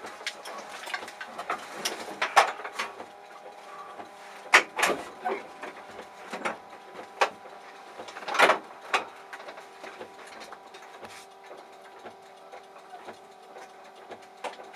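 Irregular knocks and rattles inside a stopped rally car's cabin, over a faint steady electrical hum; the engine is not running.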